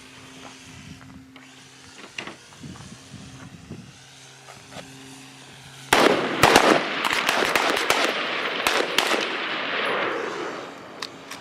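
Several shooters firing guns at a drone. At first there is a steady low hum with a few scattered shots. About six seconds in comes a dense volley of rapid shots, loud for about four seconds, then tapering off, with a couple of lone shots near the end.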